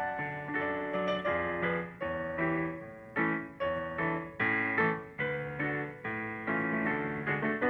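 Background piano music: chords struck and left to ring, re-struck every half second or so.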